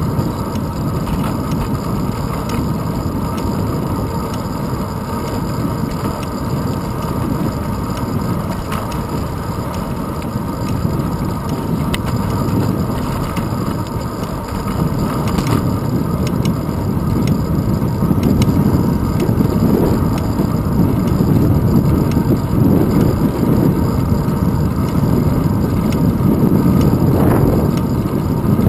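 Wind rush and road rumble from a road bicycle in motion, heard through a handlebar-mounted action camera: a steady low rushing noise that grows louder about two-thirds of the way through.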